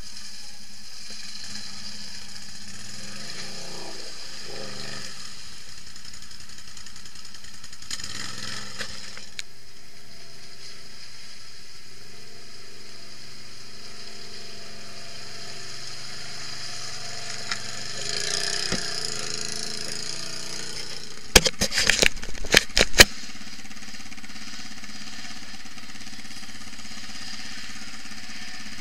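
Quad bike (ATV) engines running, revving up and down now and then, with a quick cluster of sharp knocks about two-thirds of the way through.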